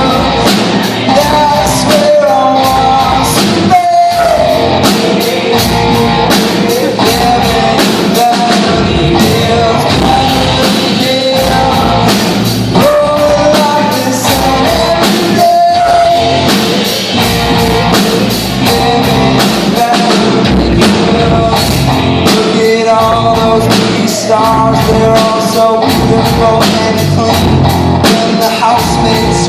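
Loud rock music with drum kit and guitar playing steadily, a melody line running over it.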